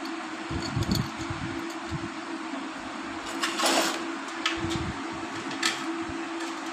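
Steady background hum with scattered light metal clinks and knocks and one short scraping rustle, from hand work on a motorcycle clutch being reassembled.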